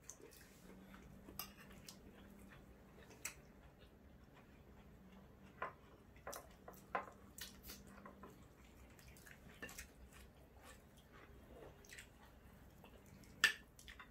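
Quiet eating with spoons and forks: scattered light clicks and taps of cutlery against plates every second or so, with faint chewing, and one sharper clink near the end.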